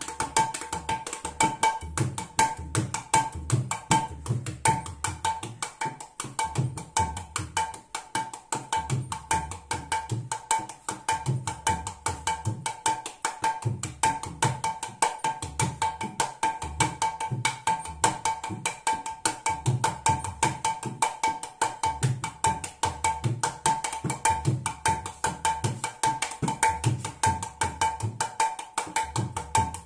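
Mridanga, a two-headed hand drum, played by hand in a fast continuous rhythm: rapid ringing strokes on the small treble head with a clear high pitch, and deep bass strokes on the large head coming in recurring groups.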